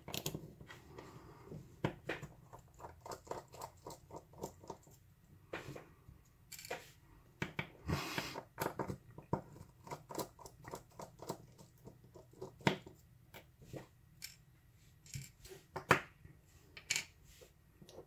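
Small precision screwdriver working the screws at the back of a Schlage lock cylinder: light metallic clicks and scrapes, partly in quick runs of several a second, with a few louder taps as metal parts are handled.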